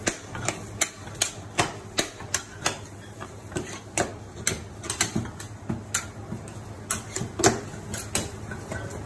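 Two metal spatulas tapping and scraping on a cold slab as ice cream is chopped and folded, in quick irregular clacks about two or three a second, with one louder strike near the end.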